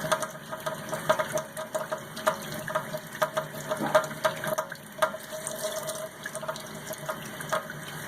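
Tap water running into a sink while a soapy makeup sponge is squeezed, with irregular small wet clicks throughout.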